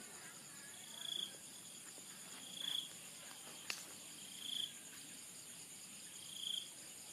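A steady high-pitched chorus of crickets or similar insects. Over it a short chirping call repeats about every two seconds, five times, and there is a single sharp click about halfway through.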